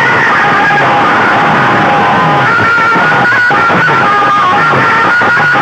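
Loud music played through banks of aluminium horn loudspeakers at full volume. It has a steady beat of low, falling drum hits about twice a second under a high sustained melody line.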